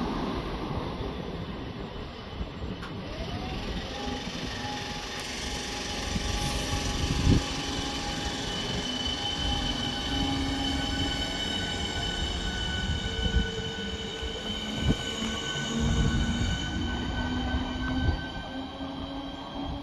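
Class 465 Networker electric multiple unit accelerating away from the platform. Its traction motors give a whine of several tones that rises slowly in pitch over a rumble, with a few sharp thumps from the wheels and track along the way.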